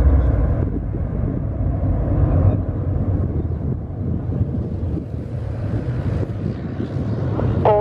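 Boeing 737-800's CFM56-7B turbofan engines at takeoff climb power, heard from behind as a steady deep jet rumble that thins in its upper part as the aircraft climbs away.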